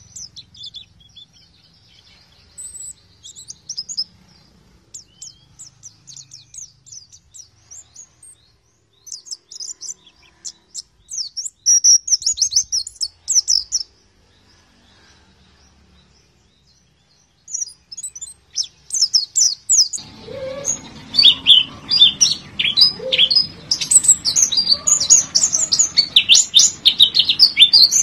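White-eye (pleci) song: rapid, high-pitched twittering chirps, sparse at first with a short pause in the middle, then from about two-thirds of the way in a denser, louder run of chirping over a background hiss.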